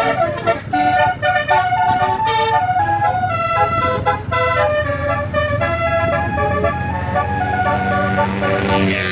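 A bus's Basuri telolet horn, a set of electric-valve air-horn trumpets, tooting a quick melody of changing notes. Near the end a rising rush of passing-vehicle noise joins in.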